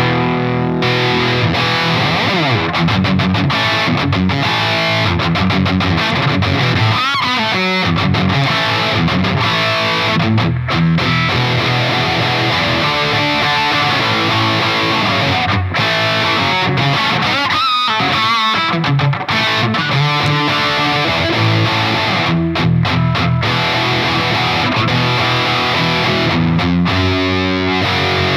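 Electric guitar played continuously through a Line 6 POD HD300 amp modeler, recorded direct from the unit with no room sound.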